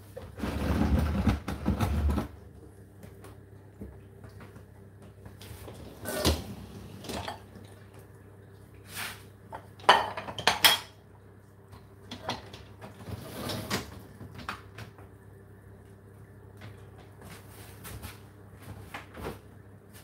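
Wire racks of a Whirlpool dishwasher rolling out, loaded with dishes: a rattling rumble lasting about two seconds at the start, then several separate clinks and clatters of crockery and cutlery in the racks, the sharpest about ten seconds in.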